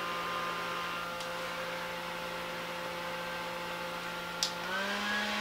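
Small handheld electric fan running with a steady motor hum. About four and a half seconds in there is a click, and the hum steps up in pitch as the fan switches to a faster speed setting.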